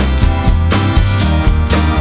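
Background music: a guitar-led band track with a steady drum beat.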